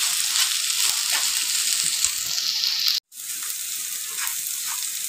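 Chopped shallots, garlic, ginger and chilies sizzling in hot oil in a non-stick pan, stirred and scraped with a spatula while they fry to about three-quarters browned. The sound drops out for a moment about three seconds in and comes back slightly quieter.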